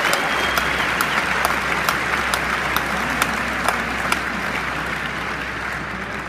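A large concert-hall audience applauding, with many individual claps standing out from the dense noise. The applause slowly dies away.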